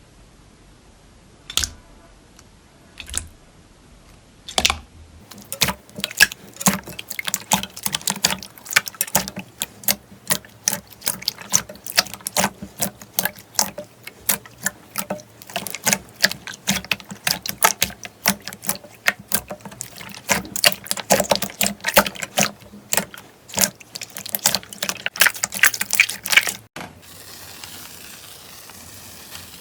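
Slime being squished and pressed by hand. A few separate clicks come in the first few seconds, then a dense run of rapid popping clicks that cuts off abruptly near the end, giving way to a quieter, steady hiss.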